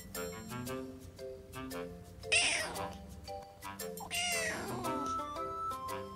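A kitten meowing twice, about two seconds apart, each a high call that falls in pitch, the first the louder. Background music of held notes plays throughout.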